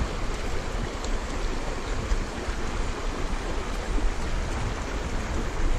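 Shallow stream running over rocks, a steady rush of water, with a low rumble of wind on the microphone.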